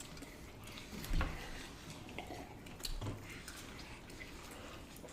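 Quiet eating sounds: chewing and handling chicken wings, with small clicks and a couple of soft thumps, about a second in and again near three seconds.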